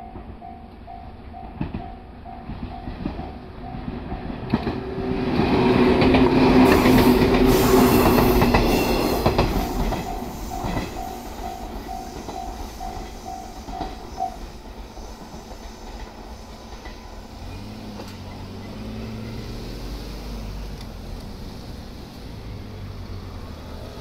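Japanese level-crossing warning bell dinging in a rapid steady pulse while an electric train runs over the crossing. The loudest part, about 5 to 9 seconds in, is the train: wheels clacking over the rail joints and a steady motor hum. The bell stops about 14 seconds in, and the train sound fades away.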